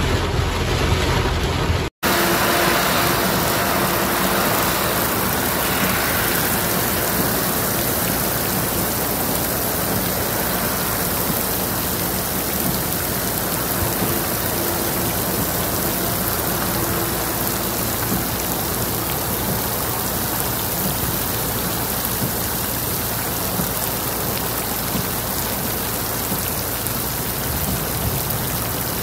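Heavy rain pouring down in a steady, dense hiss. For the first two seconds, from inside a car driving through the storm, there is a low rumble, then a brief dropout, and the rain runs on evenly.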